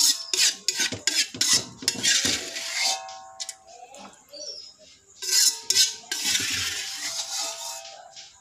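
A spatula knocking and scraping against a wok as stir-fried bean sprouts and tofu are scooped out onto a plate. Quick clatters come first, then a brief ring from the metal, then a longer scrape of about three seconds near the end.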